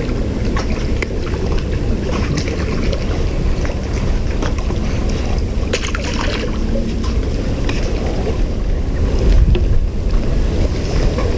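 Wind buffeting the microphone with a steady low rumble, over water lapping against the pier. About halfway through there is a short sharp splash as a small released fish drops into the lake.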